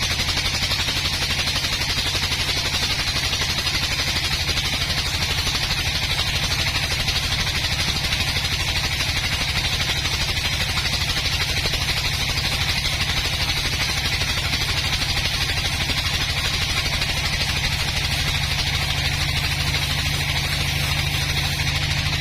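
An engine, most likely the sawmill's power unit, running steadily at an even speed with a rapid, regular chugging pulse and a hiss above it.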